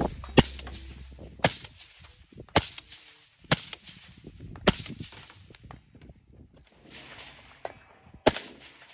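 Single shots from a suppressed semi-automatic rifle, about one a second, five in a row, each with a short echo. After a pause of a few seconds there is one more suppressed shot near the end, from an MK20 Mod 0 SSR.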